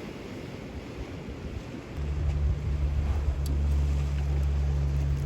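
Wind and surf noise, then a steady low engine-like hum that starts abruptly about two seconds in and keeps going.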